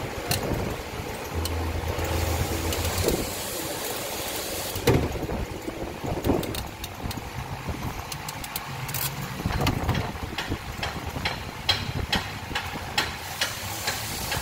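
Small clicks and taps of a crimping tool and wires being handled, coming thickest in the second half, over a steady low rumble.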